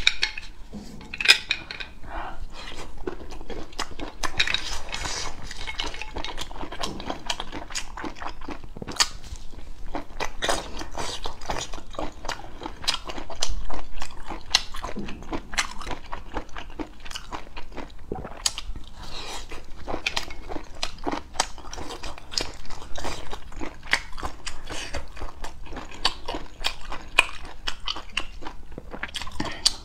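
Close-miked chewing and biting of abalone: a dense, irregular run of small mouth clicks and smacks.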